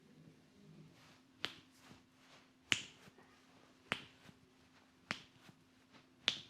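Sharp snaps made by a massage barber's hands, five strong ones evenly spaced a little over a second apart with fainter clicks between, over a faint steady low hum.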